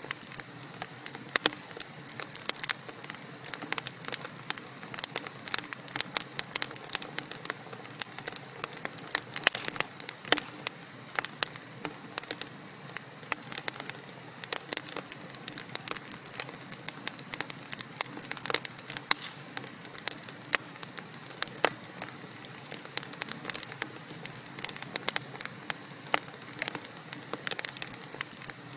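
Wood logs burning in a fireplace, with irregular sharp crackles and pops over a steady soft hiss of the flames.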